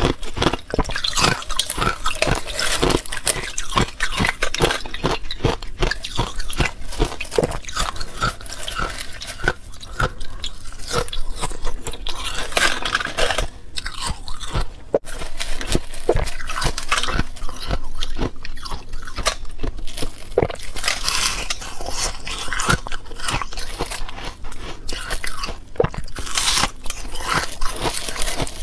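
Thin, feathery balloon ice being bitten and chewed: a dense, unbroken run of crisp crunches and crackles.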